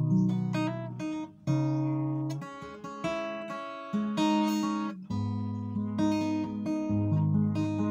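Acoustic guitar played solo as a slow instrumental: chords struck and left to ring, a new one about every second or two.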